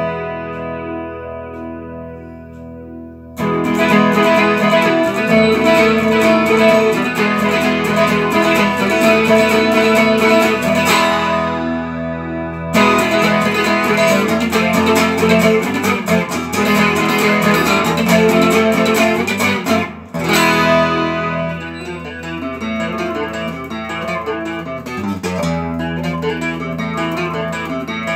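Solid-body electric guitar: a chord struck and left to ring, fading away, then from about three seconds in busy picked lines and chords. The playing thins out briefly near the middle and drops for a moment about two-thirds through before carrying on.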